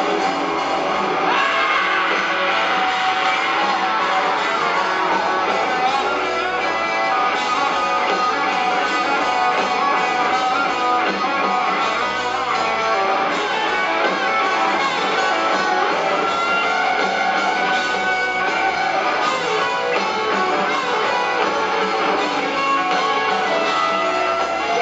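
Live rock band playing loud with electric guitars and drums, recorded from the seats of an arena.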